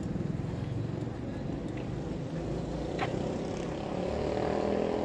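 A steady engine rumble from a passing vehicle, growing louder toward the end, with one short click about three seconds in.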